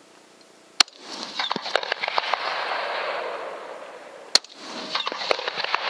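Two rifle shots about three and a half seconds apart, each a sharp crack followed by about two seconds of rushing noise with crackles.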